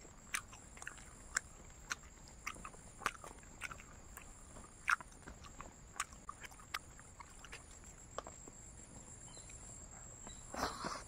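Close-up mouth sounds of chewing crunchy dried fried pork: irregular sharp crunches and clicks, with a longer, louder chewing sound near the end.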